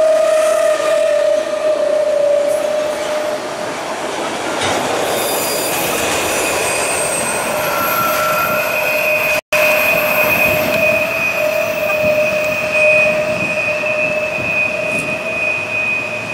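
Empty autorack freight cars rolling past, the wheels giving a sustained high squeal over the rumble of the train. The sound cuts out for an instant about halfway through, then the roll and squeal carry on.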